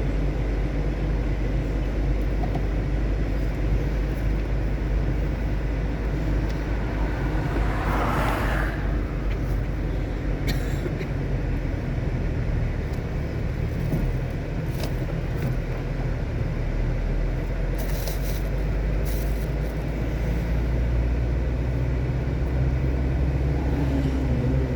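Steady driving noise from a car on the road, a continuous low drone of engine and tyres. About eight seconds in there is a brief swell of higher noise, and a few short clicks come later.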